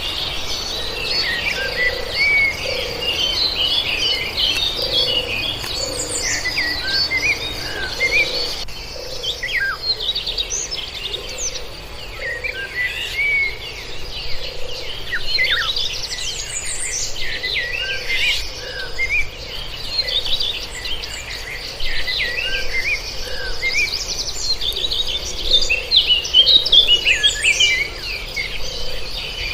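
A chorus of many birds chirping and singing at once, over a steady high-pitched insect drone. A low call repeats a little more than once a second underneath.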